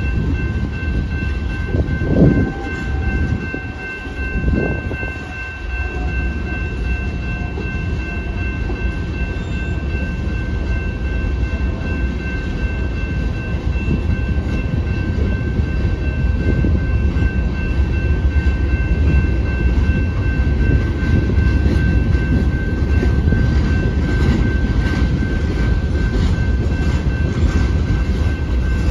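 Loaded rock train's hopper cars rolling through a grade crossing: a continuous heavy rumble of wheels on rail, with two loud clanks about two and four and a half seconds in. A steady high ringing tone sounds over it throughout.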